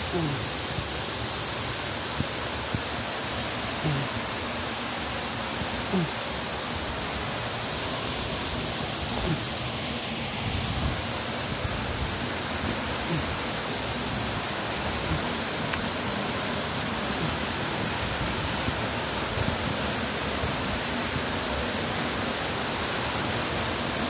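Waterfall pouring into a pool: a steady, unbroken rush of falling water.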